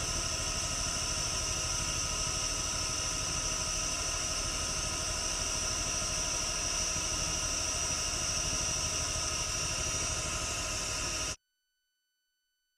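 Steady mechanical hum with a hiss and several fixed tones, like machinery or engines running without change. It cuts off abruptly about eleven seconds in.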